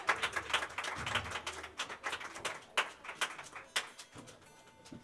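Scattered audience clapping tapering off, the claps thinning out and stopping about four seconds in, leaving a faint steady tone.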